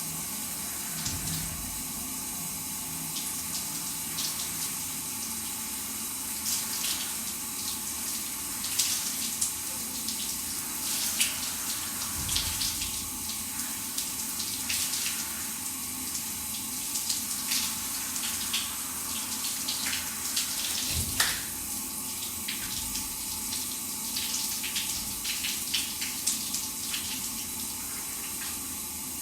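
Shower running: a steady hiss of falling spray, broken by frequent irregular sharper splashes.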